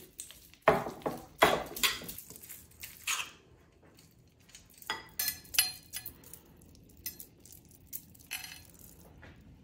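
A spoon scraping and clinking against a dish in a series of separate strokes, with quiet gaps between them, as softened mustard-and-tarragon butter is scooped up and spread over a raw chicken.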